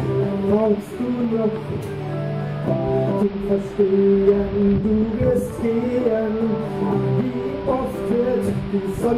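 Music: a song accompanied by plucked and strummed guitar, with sustained melody notes over the chords.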